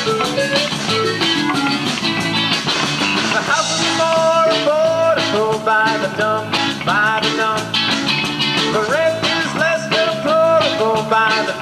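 Live rock band playing, with drum kit, bass, guitars and keyboards and a steady drum beat. About four seconds in, a melody line that bends and slides in pitch comes in over the band.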